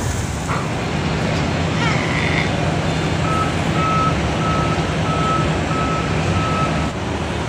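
A large truck's reversing alarm beeps about six times at an even pace. Under it a truck engine runs steadily, dropping away near the end.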